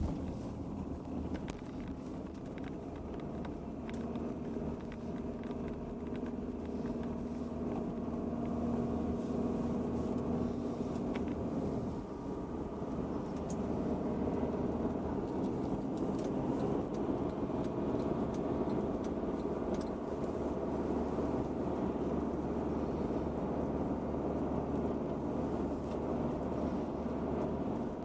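A car driving along, its engine and road rumble running steadily.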